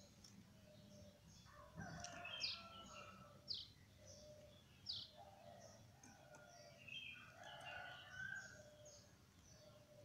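Canaries in a breeding cage chirping faintly among young birds about two weeks old: scattered short high chirps, with three sharp downward-sweeping calls about a second apart.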